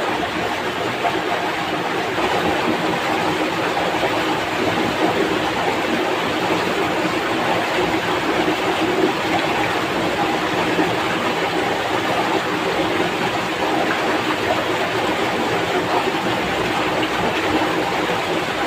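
Steady rush of a swift, shallow stream running white over rocks and small rapids.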